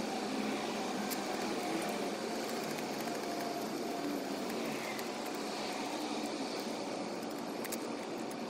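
Steady background noise with a faint hum and a few soft clicks.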